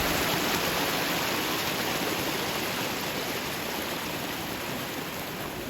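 Mountain stream rushing down the slope, a steady wash of running water that slowly grows quieter.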